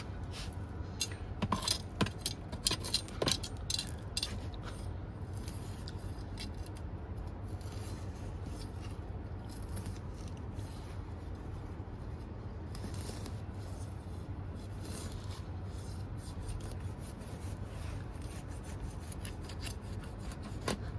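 Close handling noises, rubbing and scraping with a few sharper clicks that are busiest in the first few seconds, over a steady low hum.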